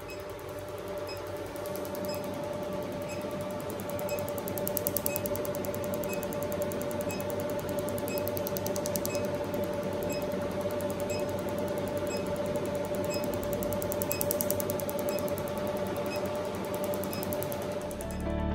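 RevLite SI Q-switched Nd:YAG laser firing rapid pulses at the skin, a fast steady ticking over the console's constant pitched hum.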